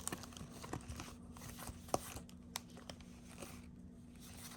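Trading cards and their foil pack wrapper being handled: faint crinkling and rustling with a few sharp clicks and taps, the loudest about two seconds in.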